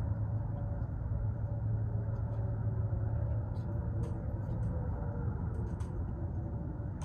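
Distant outdoor tornado warning sirens sounding as a faint steady tone under a steady low rumble, with a few small ticks.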